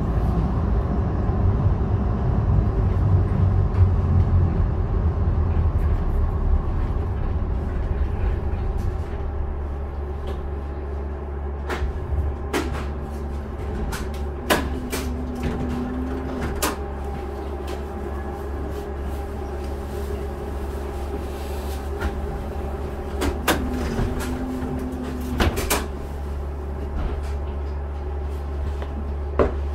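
Interior of a Siemens U2 light rail car: a low running rumble eases off after about nine seconds into a steady hum. Sharp clunks, each set with a short low buzz, come twice, about halfway through and again near the end.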